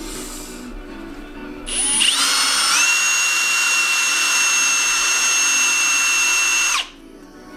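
Cordless drill spinning a wire wheel brush against a brake caliper piston to polish it. The motor whines up to speed about two seconds in, runs steadily for about five seconds, then winds down and stops near the end.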